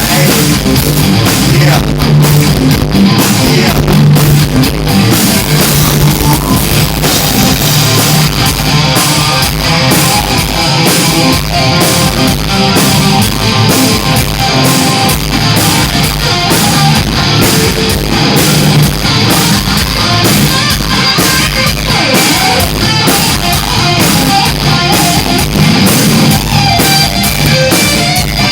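Rock band playing loudly, with a pounding drum kit and electric guitar in a steady beat.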